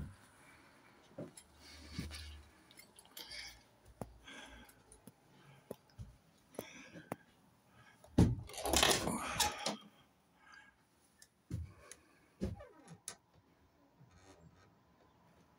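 Handling noise of someone climbing stairs and going up into a loft: scattered knocks and clicks, then about eight seconds in a thump and a scraping rustle lasting a second or two as the loft hatch is pushed open.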